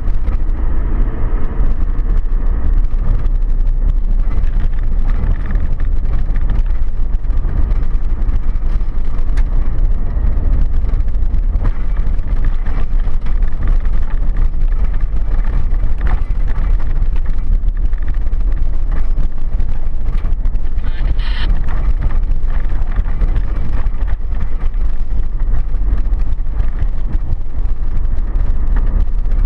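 A car driving along a gravel road, with steady engine and tyre rumble over loose stones. A brief higher-pitched sound comes a little past two-thirds of the way through.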